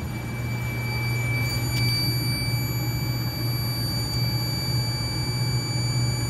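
A steady low hum with a faint, steady high-pitched electronic tone held above it, like a fire alarm control panel's built-in sounder running while the panel is in walk test.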